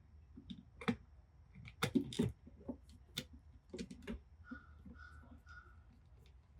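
A screwdriver clicking and tapping against the wire terminal screws on the back of a video doorbell as the wires are loosened: a handful of scattered, sharp clicks. Near the end come three short, evenly spaced tones.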